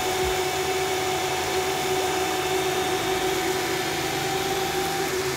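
Sovol SV03 3D printer running: a steady whirring hum from its fans and motors. A lower tone in the hum changes about three seconds in.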